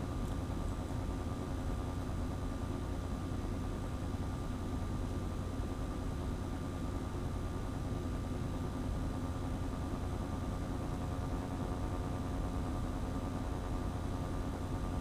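A steady machine-like hum with a few constant tones over low background noise, unchanging throughout.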